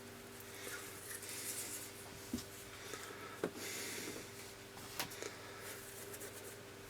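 Quiet room tone with a low steady hum and a few faint clicks spread through it.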